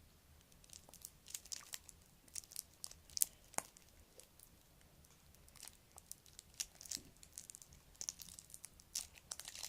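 Faint, irregular crinkling and clicking of a plastic glue tube being squeezed by hand, with one sharper click a little after three seconds in.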